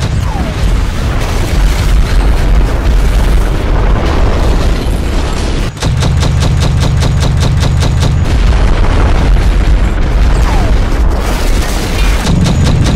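Loud, continuous battle sound effects: deep booms and explosions mixed with rapid gunfire-like strikes, several a second in stretches, with a brief drop about six seconds in.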